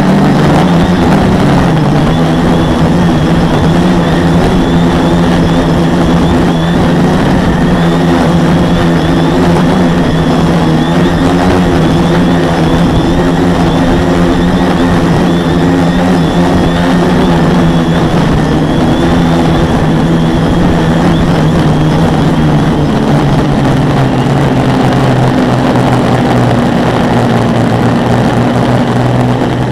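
The quadcopter's four Multistar 2212 920kv brushless motors spinning 10x4.5 propellers, a loud steady buzzing hum over a rushing noise, heard from a camera mounted on the frame. About three-quarters of the way through, the pitch drops as the motors slow.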